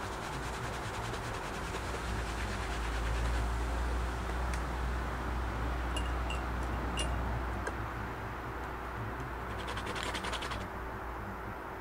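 Paint being scraped and spread across a stretched canvas in short rapid strokes, loudest near the start and again about ten seconds in, over a steady low outdoor rumble with a few faint clicks.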